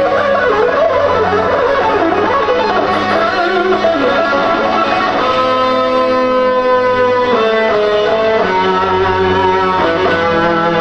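Guitar playing a melodic lead line, with wavering, bent notes at first and a long held note about five seconds in, then a run of stepped notes.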